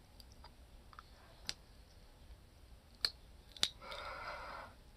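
A few sharp small clicks, then a short rustling scrape about four seconds in, from fingers handling and picking at an ear of corn on the cob.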